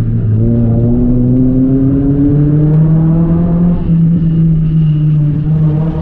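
Renault Clio 3 RS 197's 2.0-litre naturally aspirated four-cylinder engine heard from inside the cabin, pulling under load with the revs rising gradually over the first few seconds, then running on with only a slight further climb. The engine runs over a steady rumble of road noise.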